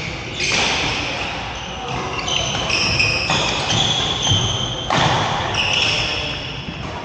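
Court shoes squeaking on a sports-hall floor during a badminton rally: short high squeaks, several overlapping, with footfalls and thuds of players moving.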